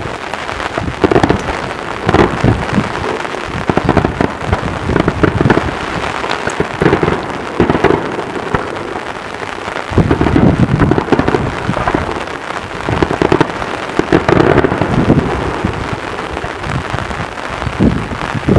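Daytime aerial fireworks barrage: a continuous rolling rattle of many rapid bangs and cracks with a low rumble, swelling louder several times, most strongly about ten seconds in and again near the end.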